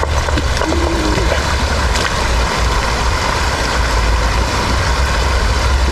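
Steady rush of a small rocky stream's flowing water, an even noise with a low rumble underneath.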